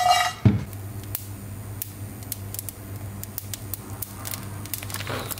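Whole spices (cinnamon, star anise, cloves, coriander seed) toasting in a dry frying pan: scattered light crackles and ticks over a steady low hum.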